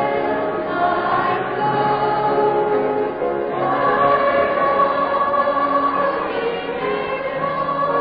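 Many voices singing a gospel hymn together in harmony, with one long held chord in the middle; an old recording with a dull, muffled top end.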